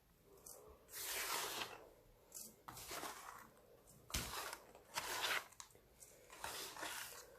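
Pressed baking soda slabs being crushed, a run of crunchy, crumbling bursts, roughly one every second.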